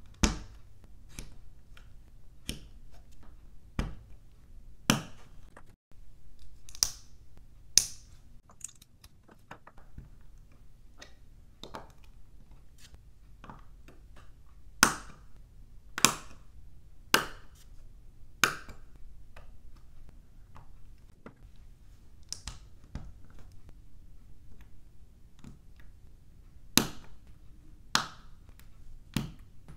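LEGO bricks being pressed together and handled on a wooden tabletop: an irregular string of sharp plastic clicks and taps, a handful of them much louder than the rest.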